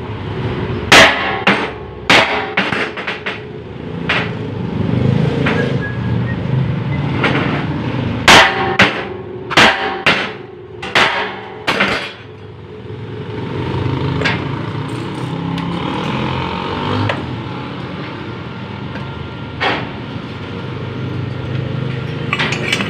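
Repeated sharp hammer blows, irregular and close together for the first half, then only a few, over the steady drone of a running engine, likely a concrete mixer's.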